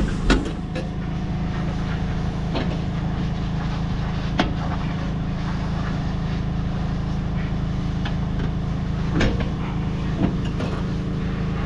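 An engine running steadily at a constant speed, with a few sharp knocks and clunks over it.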